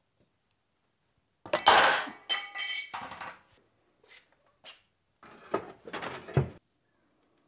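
Steel clattering and clanking in two bouts: one about a second and a half in, and a second from about five to six and a half seconds in.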